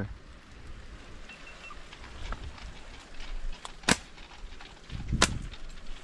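Two sharp slingshot shots about a second and a half apart, with a few fainter clicks between them: the snap of rubber bands released at birds in flight.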